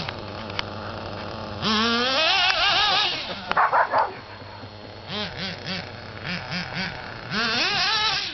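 A remote-controlled toy car's electric motor whining up in pitch as it speeds off, twice, with a dog barking and giving a run of short, quick yelps in between as it chases the car.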